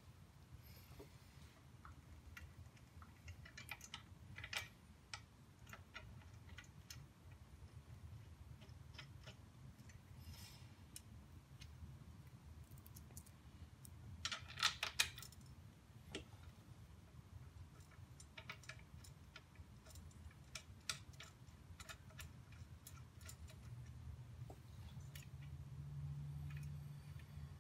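Faint, scattered metallic clicks and taps as the steel crash bar and its mounting bolts are handled and threaded in by hand at the motorcycle frame, with a short cluster of louder clicks about halfway through, over a low steady hum.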